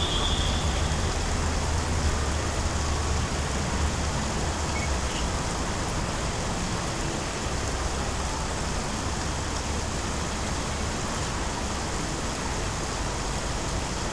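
Steady low rumble and hiss of distant city traffic.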